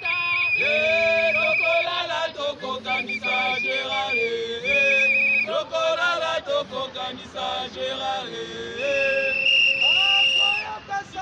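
A group of demonstrators chanting and singing a protest song together, long held notes on raised voices.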